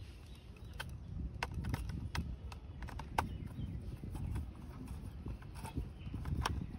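Small screwdriver tightening screws into a plastic toy car's underside: irregular light clicks and ticks of the screwdriver tip and screw against the plastic, over a low background rumble.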